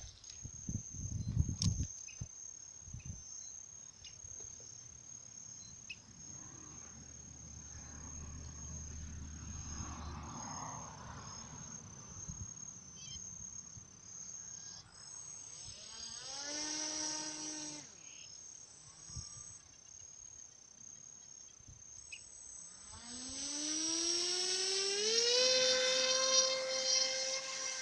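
Crickets chirping steadily, with a few handling knocks near the start. The small motor of a homemade RC boat briefly whines up and back down about two-thirds through, then spins up with a rising whine near the end and holds a steady high whine.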